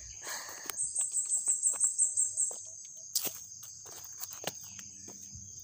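Insects trilling steadily, with a louder, high-pitched pulsed insect call of about six pulses a second during the first half, over footsteps on a dirt trail.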